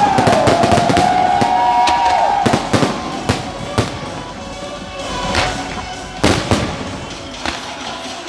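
Fireworks going off: a dense run of bangs and crackles that thins out after about two and a half seconds into sparser, separate bangs. A wavering whistle-like tone runs over the first two seconds.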